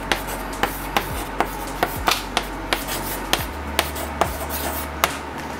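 Chalk writing on a child's easel chalkboard: scratchy strokes with a sharp tap as the chalk meets the board, two or three times a second.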